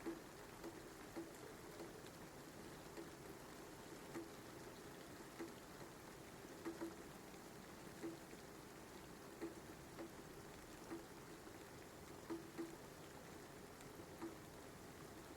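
Recorded rain laid over as a soundtrack: a faint, steady hiss of rain, with separate drops landing every second or so.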